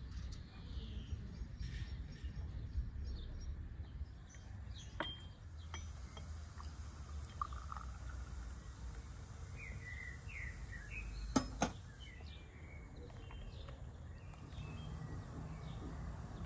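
Tea poured from a glass teapot into a small glass on a glass saucer, with sharp clinks of glass, two close together a little past the middle. Birds chirp over a low steady rumble.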